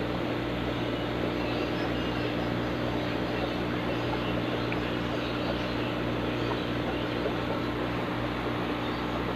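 Steady hum of an aquarium air pump, with air bubbling up through a sponge filter.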